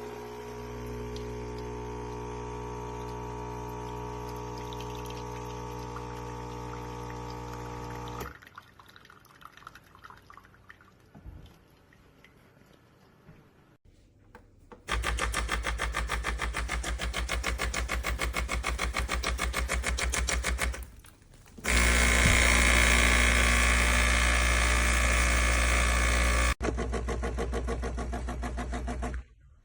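Espresso machine's water pump buzzing in spells: a steady hum for about eight seconds, a quieter pause, then a fast-pulsing buzz from about halfway that grows louder and stops shortly before the end.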